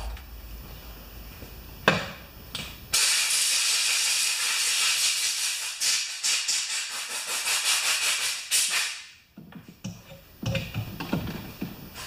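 Compressed-air blow gun hissing loudly in uneven pulses for about six seconds as it blows the washing liquid off a cleaned lawn mower carburetor, then cutting off. A couple of light clicks come just before it starts.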